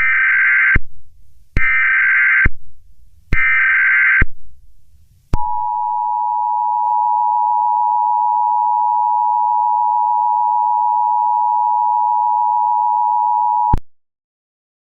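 Three short bursts of Emergency Alert System SAME header data tones, then the two-tone EAS attention signal held steady for about eight seconds before it stops abruptly. Together they announce an emergency alert.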